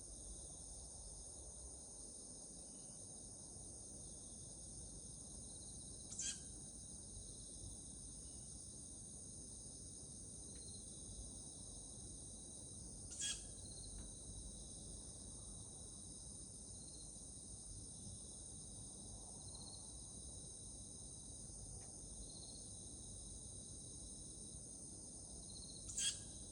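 Steady high-pitched chorus of night insects such as crickets, with three short, sharp calls from an unidentified night animal, the second about seven seconds after the first and the third about thirteen seconds later.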